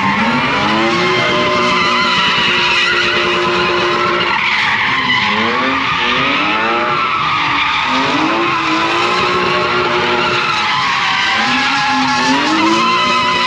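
A drift car's engine revving up and falling back again and again while its tyres squeal without a break as it slides.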